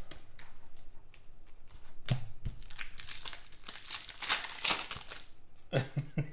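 Foil trading-card pack crinkling in the hands as it is torn open, in uneven bursts. The loudest crinkle comes a little past the middle.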